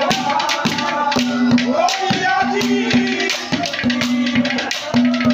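Live Haryanvi ragni music: a harmonium sounds a repeated held low note under a gliding melody, with quick, steady strokes of jingling hand percussion.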